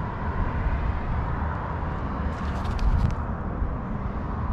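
Steady low outdoor rumble, with a short crisp rustle about two and a half seconds in as a cardboard product box is handled and turned over.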